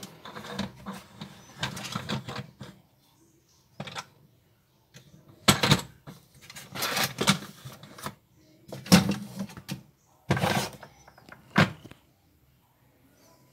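Hard plastic toy car being handled on a plastic shelf: a run of knocks, clatters and scrapes with short pauses between.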